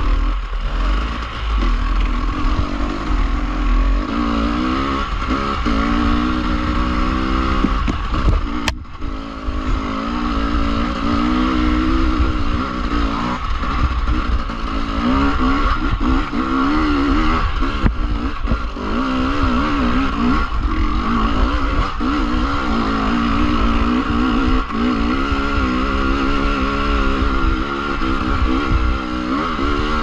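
Enduro dirt bike engine on the trail, its revs rising and falling continually as the throttle is worked, over a heavy low rumble. One sharp knock about nine seconds in.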